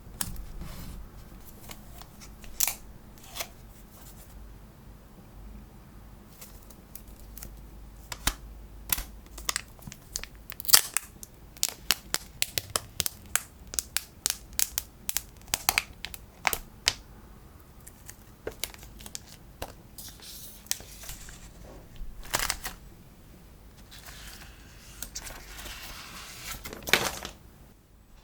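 Unwrapping and handling an iPhone SE retail box: plastic wrap tearing and crinkling against cardboard, with many short sharp taps and clicks and a longer crinkling rustle near the end.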